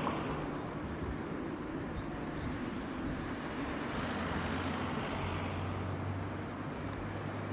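Steady road traffic noise with a low engine hum; no bird call stands out.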